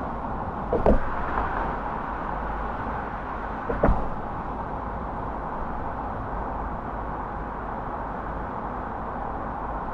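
Steady road and engine noise of a car driving, with two short thumps about three seconds apart.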